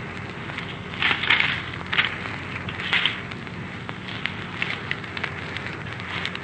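Crackling hiss of an old archival speech recording, with a low steady hum under it and a few louder crackles in the first three seconds.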